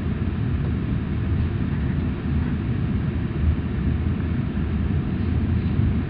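Steady low running rumble inside a Super Komachi E6 series shinkansen car on the move, with no distinct tones or clicks.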